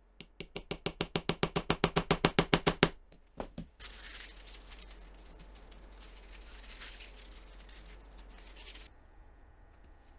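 A small hammer tapping a metal pin into a plywood block: a quick run of light, ringing taps, about eight a second, growing louder for about three seconds, then two more single taps. Then a paper towel rubbing over the steel bar and pin for about five seconds.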